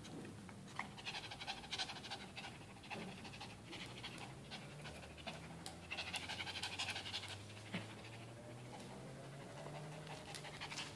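Small Shih Tzu–Chihuahua mix dog panting in quick, short breaths, in runs, as it humps a towel; the panting is from the exertion.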